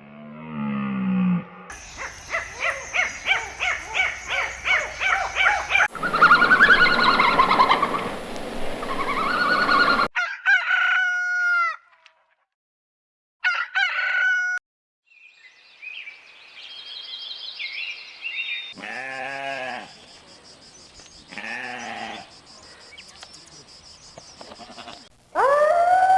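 A string of short animal-sound clips with abrupt cuts between them, mostly chickens: clucking and a rooster crowing. Near the end a dog starts howling, a long wavering call.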